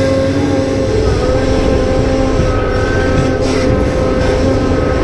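Cat 390F excavator's C18 diesel engine running hard under load, with a steady whine from the hydraulic pumps that shifts slightly in pitch as the controls are worked.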